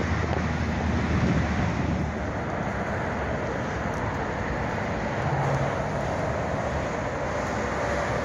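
Steady road traffic noise, an even rumble with no single event standing out.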